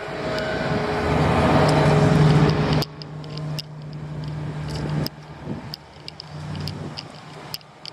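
Diesel engine of a heavy construction machine running close by with a steady low hum. About three seconds in it drops away sharply to a fainter hum, with light clicks and rattles over it.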